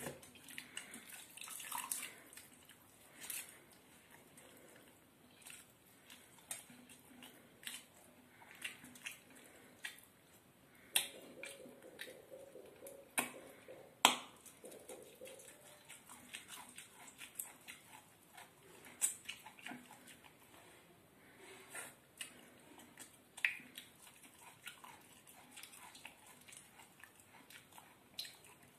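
A person eating pakhala (water-soaked rice) by hand at close range: irregular wet squelches and drips from the watery rice, with lip-smacking and chewing clicks.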